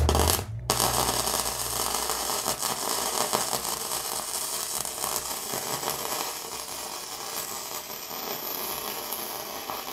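Flux-core wire-feed welder running a bead on steel, the arc crackling steadily. A short burst opens it, there is a brief break about half a second in, then the bead runs on without stopping.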